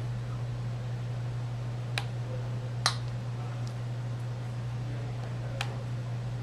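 Small magnetic poetry word tiles clicking against a metal surface as they are set down by hand: two short clicks about two and three seconds in, the second the loudest, and a third near the end, over a steady low hum.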